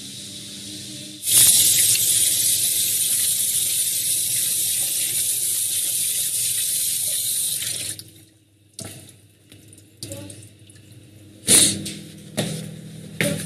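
Kitchen tap running into a sink: a loud, steady hiss of water that starts abruptly about a second in and stops after about seven seconds, followed by a few light knocks.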